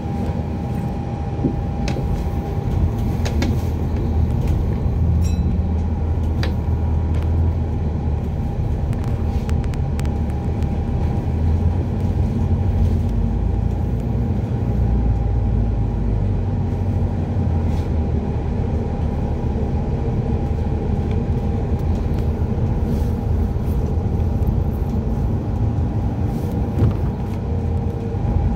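Interior of an Alexander Dennis Enviro400 hybrid double-decker bus under way: a steady low rumble from the drivetrain and road with a constant high tone running through it, and frequent small rattles and clicks from the bodywork.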